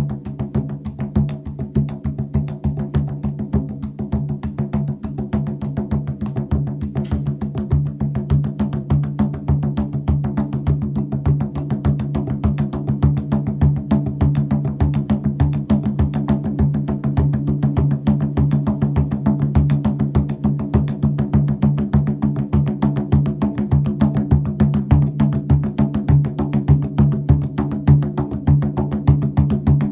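Music: fast, evenly repeating percussion strokes over a sustained low drone.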